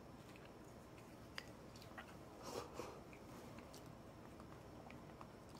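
Near silence, with faint chewing sounds and a few soft clicks, the faint chewing clustered about two and a half seconds in.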